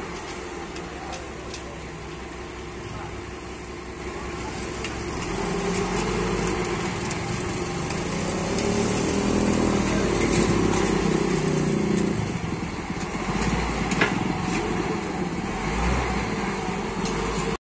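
Forklift engine running, then working harder from about five seconds in as it pushes a heavy log onto the sawmill carriage, easing a little and picking up again later. A sharp knock sounds about fourteen seconds in.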